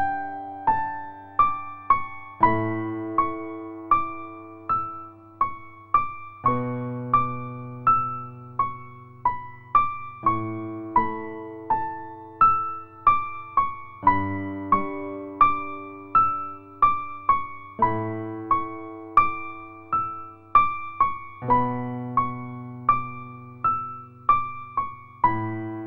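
Background music: a soft electric piano plays a gentle melody of single plucked-sounding notes over slow changing bass chords.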